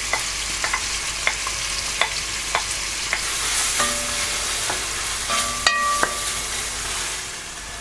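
Chicken and grated onion sizzling in melted butter in a cocotte, with a utensil knocking against the pot about every half second as they are stirred. Two short metallic rings come about halfway through.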